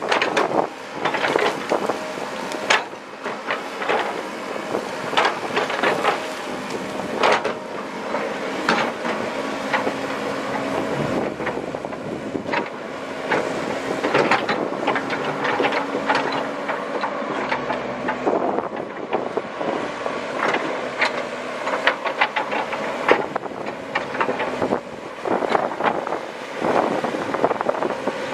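Komatsu PC130 hydraulic excavator working: its diesel engine runs steadily under many sharp metallic clanks and knocks of the machine against rock and gravel.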